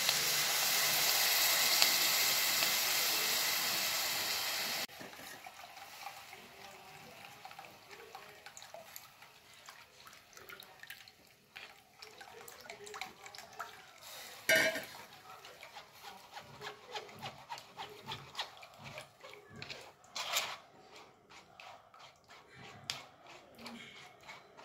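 Yogurt-and-gram-flour batter poured through a plastic strainer into a pan of hot ghee tempering: a loud pouring sizzle that cuts off abruptly about five seconds in. After that a spoon scrapes and taps inside the plastic strainer, pushing the last of the batter through, with scattered small clicks and a couple of sharper knocks.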